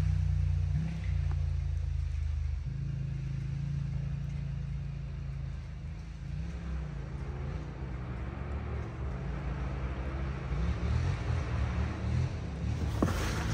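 Yamaha Raptor 700 ATV's single-cylinder four-stroke engine through a Big Gun dual exhaust. The engine note fades over the first few seconds, rises and falls with the throttle in the middle, and grows louder again near the end.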